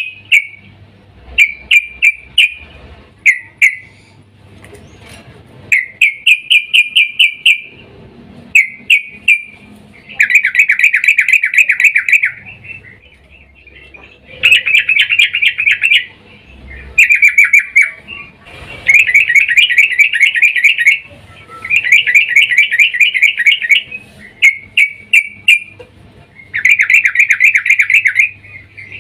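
Female yellow-vented bulbul (trucukan) calling in excited bursts of rapid, bubbly chattering notes, about a dozen bursts of up to two seconds each with short pauses between, a call meant to draw in males.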